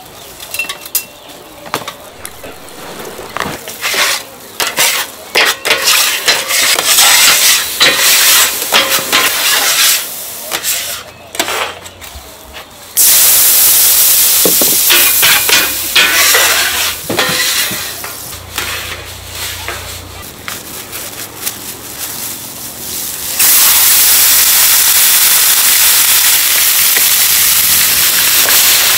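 Metal scrapers scraping and clattering across a large flat iron griddle. About halfway through, water poured onto the hot plate bursts into a loud, steady hiss of steam, and more scraping follows. Near the end a second loud, steady sizzle starts as raw pork intestines go onto the steaming plate.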